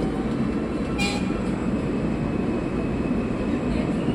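Steady rumble of an R160 subway train running at speed, heard from inside the car: wheels on rail and car noise. A short, sharp high-pitched sound comes about a second in.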